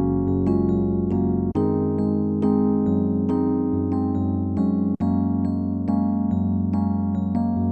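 Music played on an electric piano: single notes struck over held chords at a slow, even pace, breaking off for an instant twice.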